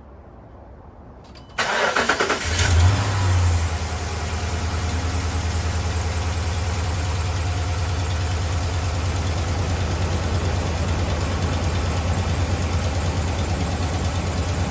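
Dodge 5.7 L Hemi V8 started after a repair for a cylinder-5 misfire (code P0305): the starter cranks briefly about a second and a half in, the engine catches, flares up for a moment, then settles into a steady idle.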